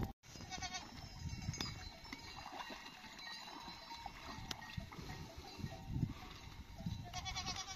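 A flock of sheep and goats: faint bleating near the start and again near the end, with neck bells clinking now and then.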